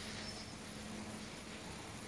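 Quiet room tone: a steady hiss with a faint low hum, and no distinct knocks or clicks.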